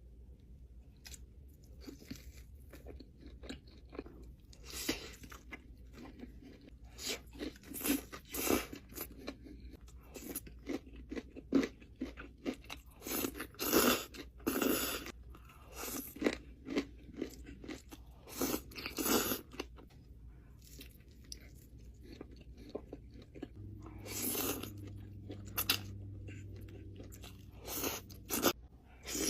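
Close-miked eating: a person biting and chewing crunchy fried food, with irregular loud crunches throughout. A low steady hum joins for a few seconds near the end.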